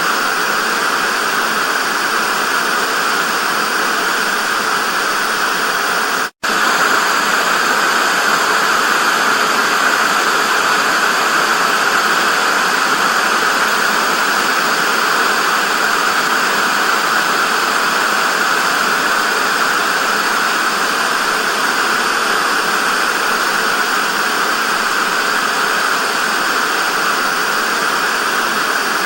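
Television static: a steady, even hiss that drops out for a split second about six seconds in.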